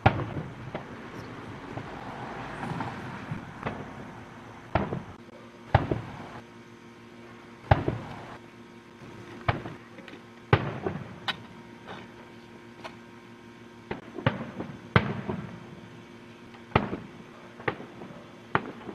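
Aerial fireworks bursting. A loud bang at the start is followed by a few seconds of crackling, then a string of separate sharp booms about every second or two.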